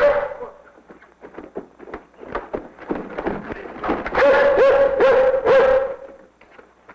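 A collie barking and whining excitedly. There are short sharp sounds in the first seconds, then a loud run of about four drawn-out, yelping barks from about four seconds in.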